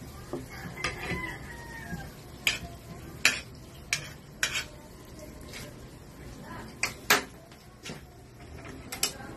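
Metal spoon clinking and scraping against an aluminium wok as butter is spooned in, with about a dozen sharp clinks at irregular intervals from about two seconds in.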